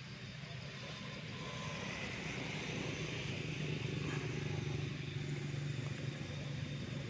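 A motor vehicle's engine: a steady low hum that grows louder over the first few seconds, is loudest about four to five seconds in, then eases off a little.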